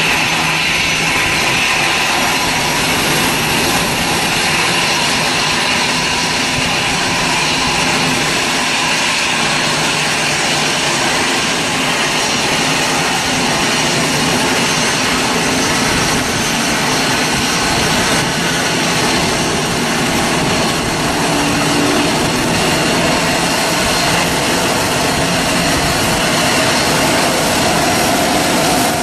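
Airbus A320's jet engines running steadily at low taxi power: an even rush of engine noise, with a faint high whine near the start.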